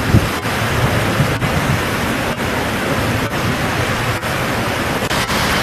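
Steady rushing noise of seaside wind on the microphone, with an uneven low rumble from the gusts.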